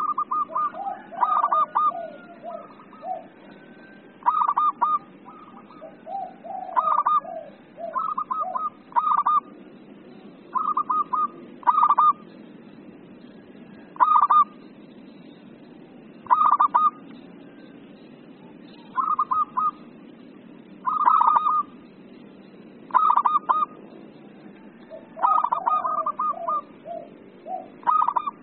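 Zebra dove (perkutut) cooing: short bursts of rapid staccato notes, repeated every one to two seconds, with softer, lower notes between some of the bursts.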